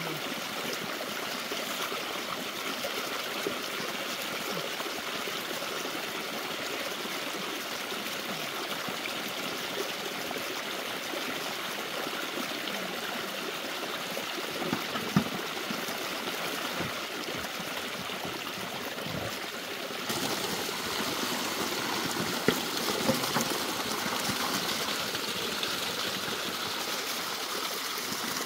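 A small stream of water falling over an earth bank and splashing steadily as a plucked chicken is rinsed under it. A few sharp knocks, and the splashing gets a little louder and brighter about twenty seconds in.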